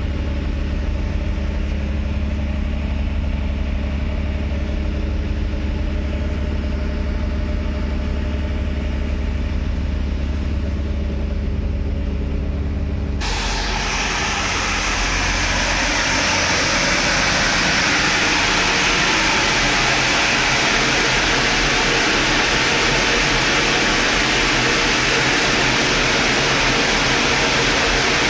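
Running machinery: a steady low engine-like hum, then, about 13 seconds in, an abrupt change to a loud, steady rushing noise like a large fan or blower.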